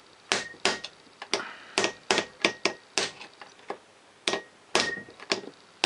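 Hammer tapping a steel roll pin through a Lister D engine's governor, a pin that is stiff to drive because its hole is not quite aligned. About fifteen light, irregular metallic taps, each with a brief ring.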